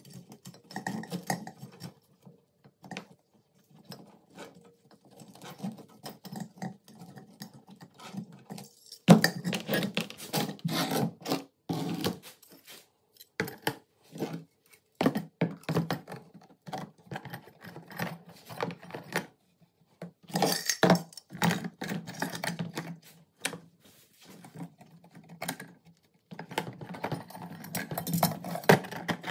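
Rusty MP5 parts being handled: metal clinking and rattling against metal and against a plastic tub as wire is pulled off them and the parts are set down. An uneven run of clatter broken by short pauses, busiest about nine to twelve seconds in and again near the end.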